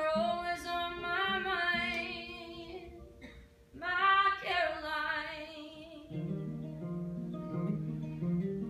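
A woman sings two long, wavering vocal phrases over a strummed acoustic guitar; from about six seconds in the voice stops and the acoustic guitar plays on alone.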